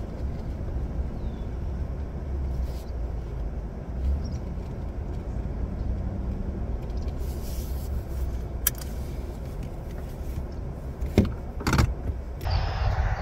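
Ford F-150 pickup's engine and tyres rumbling low and steady as it creeps across a bumpy grass field, heard from inside the cab. Near the end come two sharp knocks about half a second apart.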